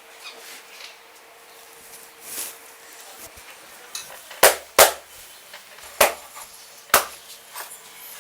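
Four sharp hand smacks of an Indian head massage: two in quick succession about halfway through, then two more about a second apart, with softer rubbing sounds between.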